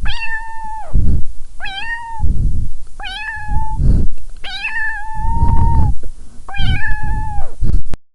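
A cat meowing five times in a row, each meow rising, holding level and then dropping off, the fourth one drawn out longest. A low rumble sits under and between the meows.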